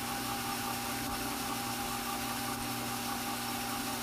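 Strauch Mad Batt'r electric drum carder running steadily: a constant motor hum.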